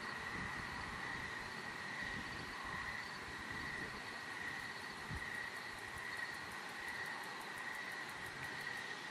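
Night insects, crickets most likely, chirping steadily in a continuous high trill, with a faint low rumble of wind on the microphone underneath.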